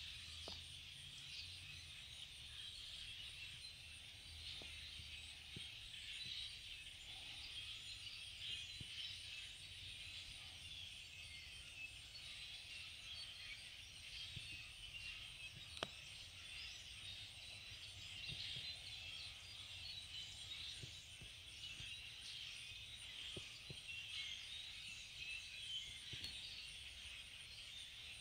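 A huge flock of migrating birds calling all at once, a dense, unbroken chatter of countless overlapping chirps. A single sharp click about two-thirds of the way in.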